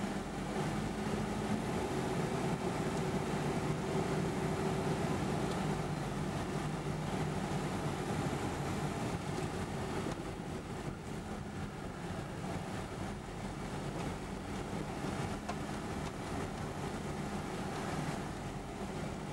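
A car driving, heard from inside the cabin: steady engine hum and road noise, with the engine tone strongest in the first few seconds and easing off after about ten seconds.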